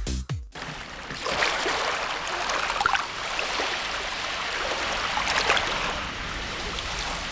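Moving water: a steady rushing hiss with small scattered splashes.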